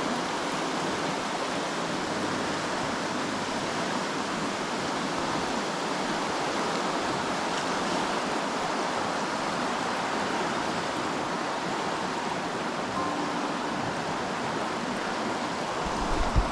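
A river in flood after a storm, its swollen muddy water rushing in a steady roar of noise. A brief low bump comes near the end.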